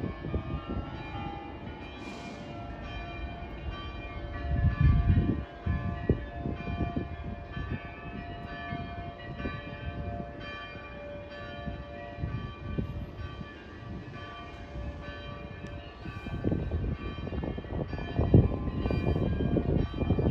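Bells of several churches ringing together, long overlapping tones. Wind buffets the microphone in gusts, strongest about five seconds in and near the end.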